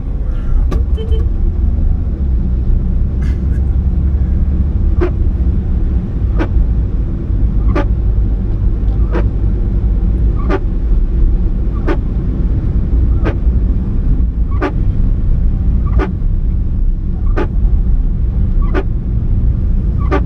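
Car driving, a steady low road and engine rumble heard inside the cabin, with a short sharp tick repeating about every second and a half from about five seconds in.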